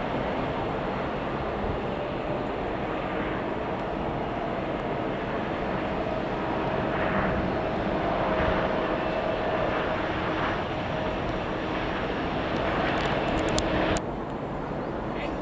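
Airliner jet engines heard from the airfield as a steady rush with a faint whine, in strong storm winds. The sound drops off suddenly near the end.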